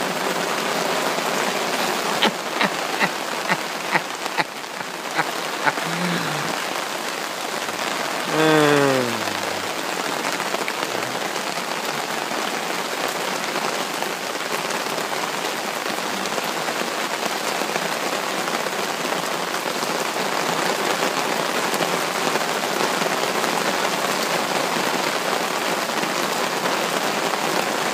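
Heavy rain pouring steadily onto a river surface, a dense unbroken hiss. A few sharp ticks come in the first few seconds, and a short call falling in pitch stands out about eight seconds in.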